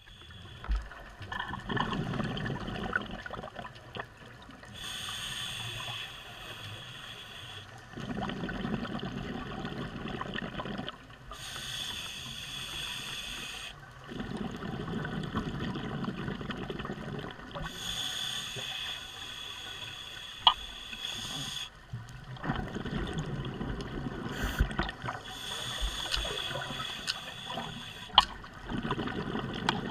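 Scuba diver breathing through a regulator underwater: a hissing inhale alternates with a bubbling exhale, about four full breaths, one every six to seven seconds. A few sharp clicks come in the second half.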